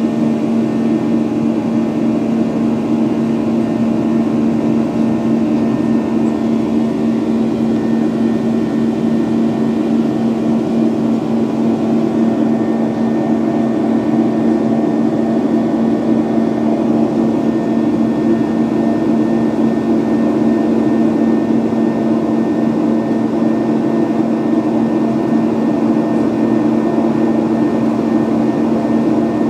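Cabin noise inside a Boeing 737-800 in flight: the CFM56-7B jet engines and rushing air make a steady drone with a strong low hum.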